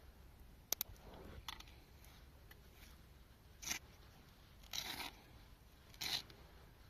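Small clicks and short scrapes of an old alarm clock being handled and opened up. There are two sharp clicks a little under a second in, then four brief rasping scrapes spaced about a second apart.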